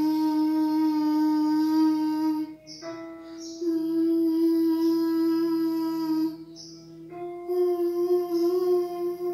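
A young girl singing a vocal warm-up exercise: long held notes on a soft rounded vowel, close to humming, each a little higher than the one before, with short breaths between them.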